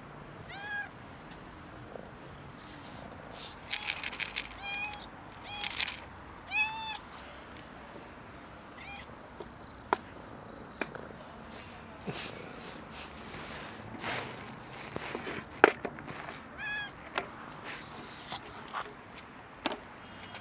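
Domestic cats meowing: short, arched meows, a quick run of them a few seconds in and single ones before and after. Several light taps and one sharp knock about three quarters of the way through.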